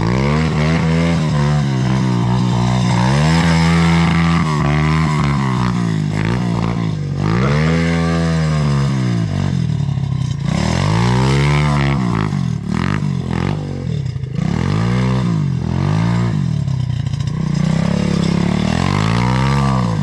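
KTM 525 XC quad's single-cylinder four-stroke engine being ridden, revving up and down again and again, a new rise every second or two.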